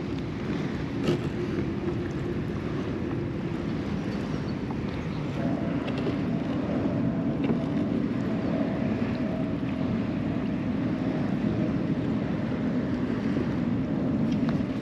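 Steady wind on the microphone and water around a kayak, with a low hum underneath and a faint steady tone that joins about five seconds in. A few light clicks are heard near the start.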